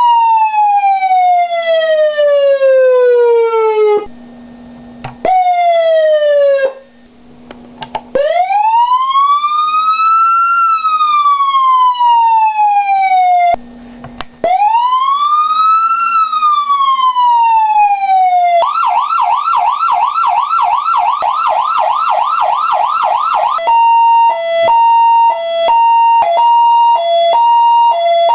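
Federal Signal PA300 electronic siren through an MS100 Dynamax speaker, stepping through its tones. First come falling sweeps, then two wail cycles that rise slowly to a peak and fall away, then a fast yelp of about four sweeps a second. Near the end it switches to a hi-lo two-tone alternation. A low hum sits in the short pauses between tones.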